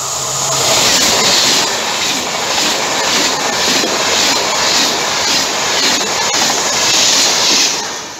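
TGV high-speed trainset passing close at speed: a loud, steady rush of wheels on rail and air that pulses with a regular beat as the cars go by. It dies away near the end as the last car passes.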